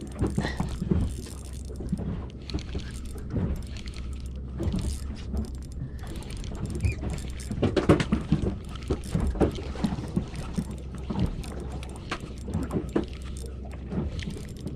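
Wind and water noise around a small boat, with a steady low rumble under irregular knocks, clicks and rattles.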